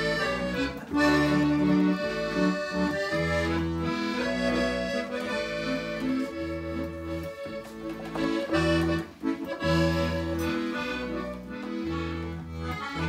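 Piano accordion playing the instrumental break of a ranchera, held chords under a melody that change every second or two, with an acoustic guitar accompanying.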